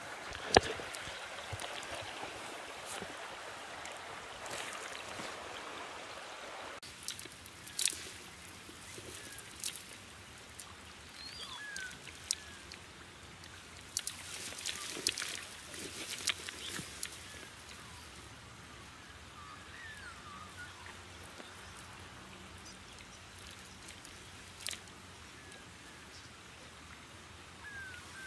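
Hands splashing and sloshing in shallow stream water while feeling among the reeds for freshwater crayfish, with scattered sharp splashes and knocks over the steady trickle of the stream. The first few seconds are a louder rustling haze as the camera is carried, and a few short high chirps come through.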